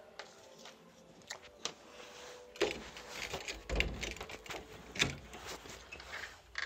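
A door being unlatched and opened: a few sharp clicks and knocks with rustling handling noise, louder from about halfway through.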